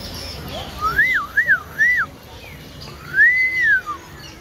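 Gibbon calling in pure, whistle-like whoops: three quick notes that each rise and fall, then one longer drawn-out note that climbs, holds and drops away.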